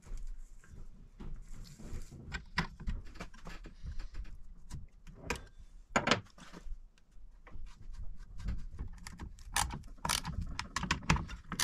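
Metal clicks and clinks as the bar, chain and sprocket cover of a vintage Craftsman Power-Sharp chainsaw are fitted by hand. Near the end there is a quick, even run of clicks, about three or four a second, as the cover nuts are tightened with a small wrench.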